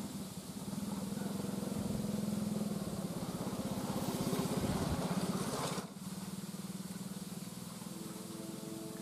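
An engine running nearby with a steady, rapid pulsing hum. It builds to its loudest about five seconds in, then drops off suddenly to a quieter, steadier hum. A brief tone of a few pitches sounds near the end.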